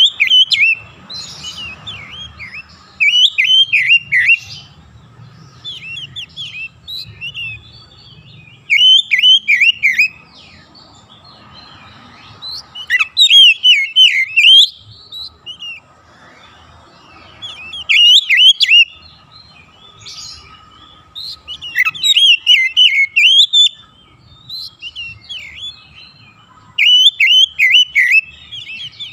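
Male Oriental magpie-robin (kacer) singing: loud bursts of rapid, varied whistled and chattering notes, each phrase lasting a second or two and repeated about every four to five seconds.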